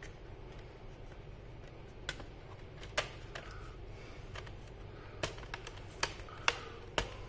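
Sharp, irregular plastic clicks and taps from the HP G6 laptop's plastic chassis parts being handled and pressed into place. They start about two seconds in and come more often toward the end, over a low steady background hum.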